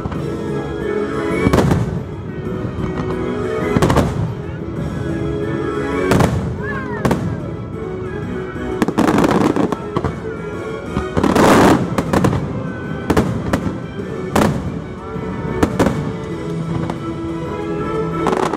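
A fireworks display with shells bursting every one to three seconds, the loudest volleys about nine and eleven seconds in, over show music playing through loudspeakers.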